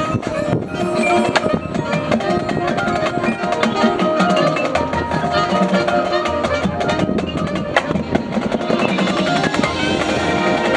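A high school marching band playing its field show, with sharp percussion strikes over sustained pitched notes. A low bass part comes in about five seconds in.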